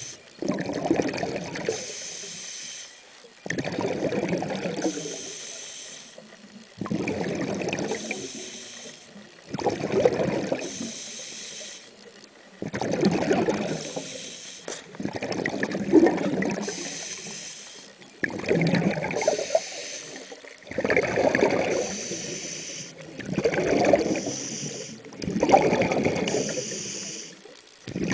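A scuba diver breathing underwater through a regulator: a hiss on each inhale, then a rush of exhaled bubbles. About ten breaths, one every three seconds or so.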